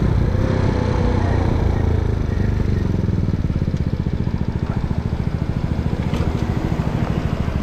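Mondial SFC 50 cc scooter engine running under the rider. It is rolling at low speed through a turn, and about halfway through it settles into an even, low putter of rapid pulses.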